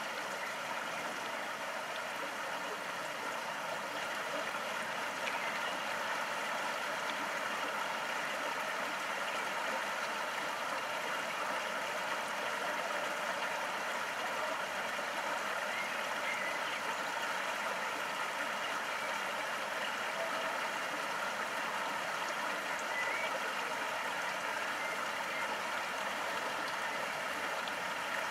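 Steady running water of a small stream, an even rushing with no breaks.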